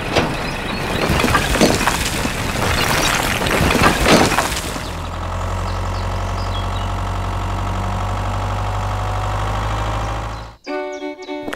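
A load of miniature clay bricks clattering and sliding off a tipping toy trailer for about four and a half seconds. Then a steady engine hum as the toy tractor pulls away, with music starting near the end.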